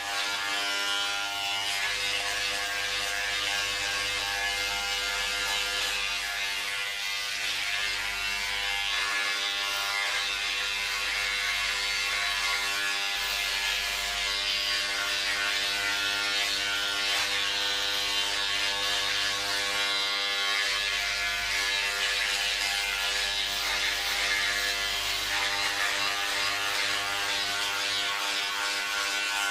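Electric hair clipper running with a steady buzz and a hiss over it.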